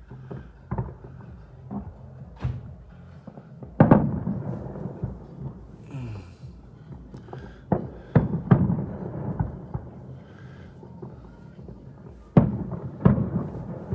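Fireworks shells bursting in a series of sharp bangs, each followed by a low rolling rumble. The loudest bang comes about four seconds in, a quick cluster of bangs about halfway through, and two more near the end.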